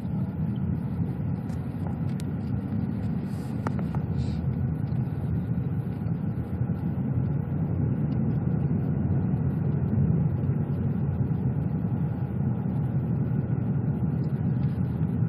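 Steady low rumble of road and engine noise inside a car's cabin as it drives along a paved road.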